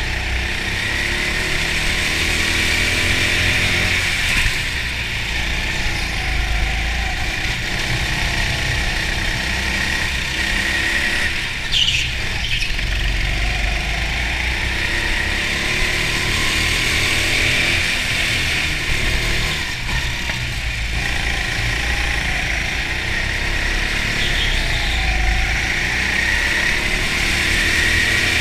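Go-kart motor running at speed from on board, its pitch rising and falling as the kart slows for corners and accelerates out, over a steady low rumble. A short high squeal about twelve seconds in.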